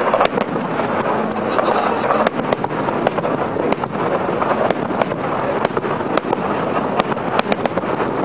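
Aerial fireworks going off in a barrage: a continuous dense din with sharp bangs and cracks standing out about twice a second.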